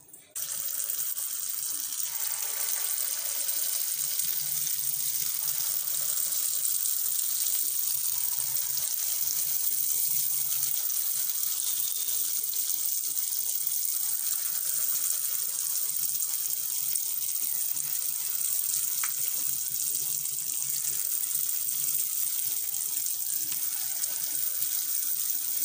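Rice-batter fritters (choul bara) deep-frying in hot oil: a steady, high sizzle that starts suddenly just after the start as the batter goes into the oil.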